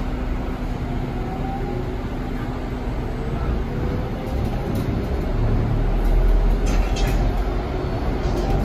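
Cabin sound of a Linkker LM312 battery-electric bus on the move: a steady low rumble of road and body noise with a faint electric-motor whine gliding upward in pitch. The rumble swells about five to seven seconds in.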